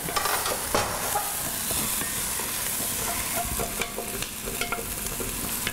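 Onions sizzling as they fry in butter in an enamelled cast-iron pot, with a wooden spoon stirring them and scraping the bottom of the pot in short clicks and scrapes over a steady hiss.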